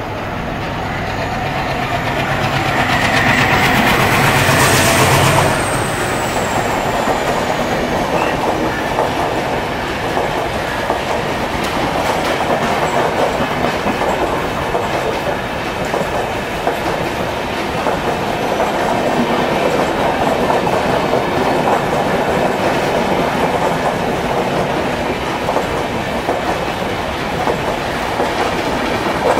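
Indian Railways WDM3D ALCO diesel locomotive passing at speed, its 16-cylinder ALCO 251 engine loudest about four to five seconds in, with a high whine that falls in pitch as it goes by. Then its coaches follow with steady wheel clatter over the rail joints.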